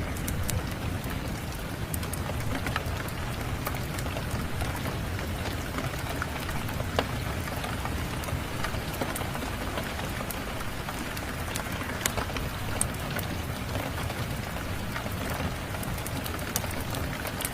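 Steady rain with a low rumble, over which a wood fire crackles with scattered sharp pops.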